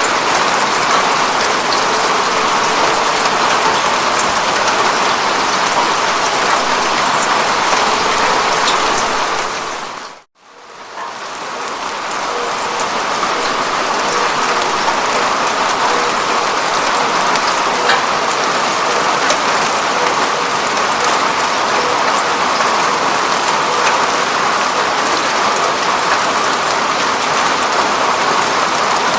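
Steady rain on a window pane, a dense even hiss with small ticks of single drops. About ten seconds in it drops out almost to silence for a moment and swells back up over a couple of seconds.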